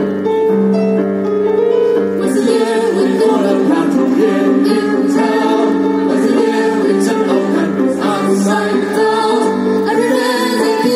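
Live stage music over a PA system: a sung number with keyboard and string accompaniment.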